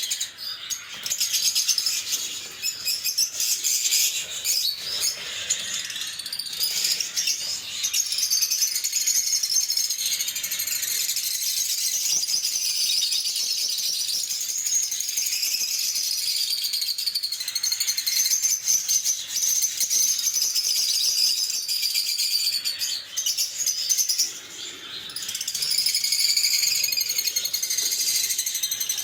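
Lovebirds chirping and chattering in dense, shrill, high-pitched calls, with a brief lull near the end.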